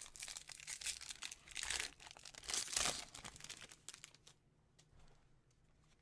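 Foil wrapper of a baseball card pack crinkling and tearing as it is pulled open, loudest about two and a half seconds in, followed by fainter handling noises.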